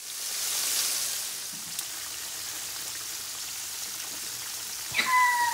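Battered tilapia pieces deep-frying in hot oil in an electric skillet, sizzling steadily with a rain-like crackle, loudest in the first second. Near the end comes a click and a brief steady high tone.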